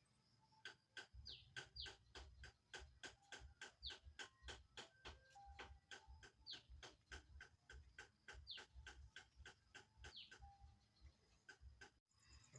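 Dog chewing and smacking its lips while eating cake: faint, rapid wet clicks, about three or four a second, with soft low thumps under them.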